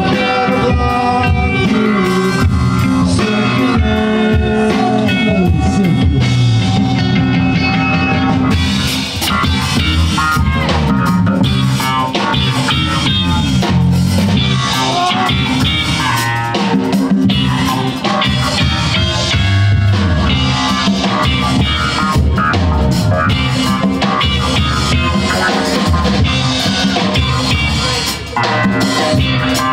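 Live band playing an instrumental rock-funk groove: electric guitar over bass and drum kit, with the cymbals filling in harder about eight seconds in.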